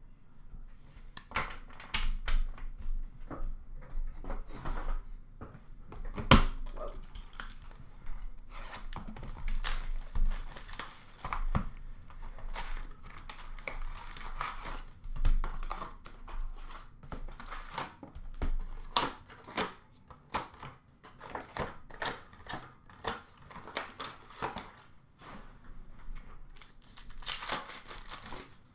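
Hands tearing open a cardboard 2005-06 Fleer Ultra retail hockey card box and its foil card packs: an irregular run of crinkling and tearing with handling knocks, the sharpest about six seconds in.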